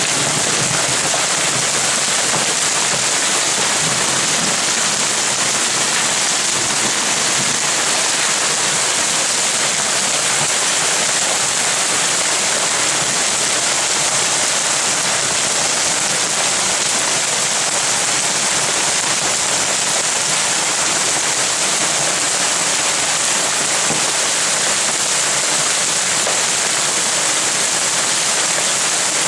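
Hail pelting a hot tub cover and patio surfaces, a dense, steady hiss of countless small impacts.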